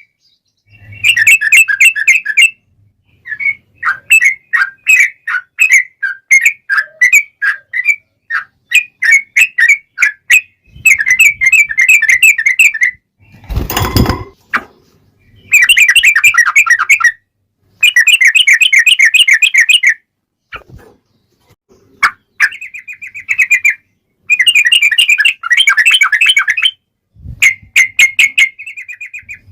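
Yellow-vented bulbul (trucukan) singing in repeated phrases of rapid, bubbly chirps, each phrase a second or two long with short gaps between. About 14 seconds in there is a brief burst of crackling noise.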